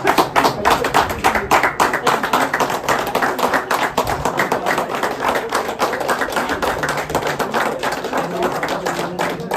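Crowd applauding, with dense, fast hand claps, strongest in the first couple of seconds and easing a little later; a few voices under it.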